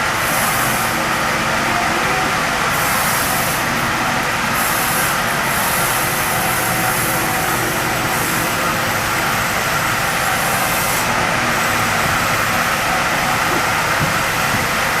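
Heavy machinery running steadily, a loud continuous mechanical drone with no break.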